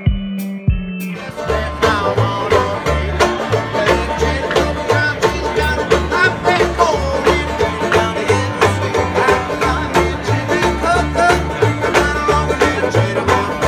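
Banjo and upright bass playing a bluegrass tune: picked banjo over a steady plucked bass line, coming in about a second in after a brief snatch of different music.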